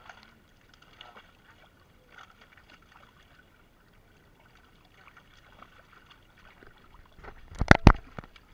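Live fish thrashing and splashing in a net drawn up in shallow water, with light scattered splashes and, near the end, a few loud sharp slaps as a large fish flaps at the surface.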